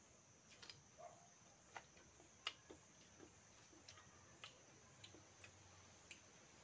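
Quiet eating sounds of people eating by hand: scattered small clicks and smacks of chewing and fingers in food, one a little louder about two and a half seconds in.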